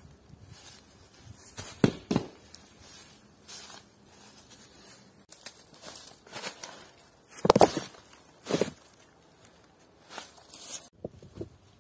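Irregular crunches and cracks, like footsteps and snapping twigs on a forest floor, at no steady pace; the loudest come about two seconds in and in a cluster around seven and a half to eight and a half seconds in.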